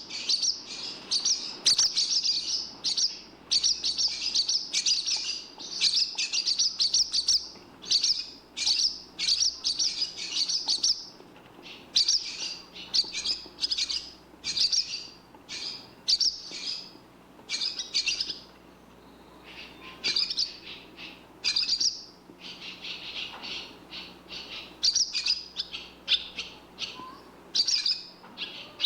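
Barn swallow twittering: runs of quick, high chirps in bursts of up to about a second, repeating with short pauses.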